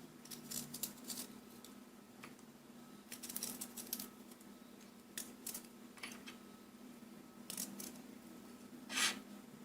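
Knife cutting out the core of an apple: light, irregular clicks and taps, a cluster about three seconds in and a louder one near the end, over a faint steady hum.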